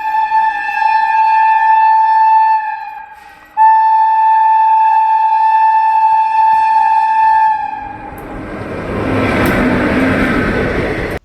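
Indian Railways locomotive horn sounding long blasts of one high steady note: the first dies away about three seconds in, and after a short break a second blast is held for about four seconds. Then the rising rumble of the train running past, which cuts off abruptly.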